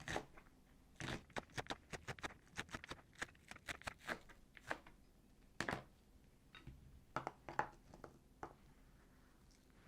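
Green onions being cut on a cutting board: an irregular run of crisp, sharp cuts, quick and close together at first, then fewer and further apart.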